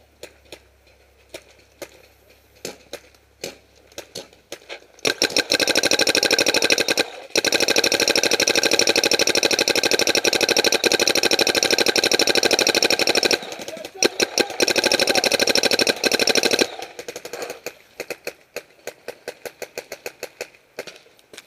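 Paintball markers firing: scattered single shots, then a long rapid full-auto stream of shots from about five seconds in that runs for roughly eight seconds, pauses briefly and resumes for a few more seconds before going back to scattered single shots.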